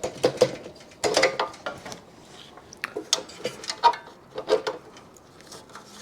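Hand tools and metal parts clicking, clinking and knocking at an irregular pace while the rear shock absorber of a Yamaha YL2C 100 Trailmaster is being unbolted.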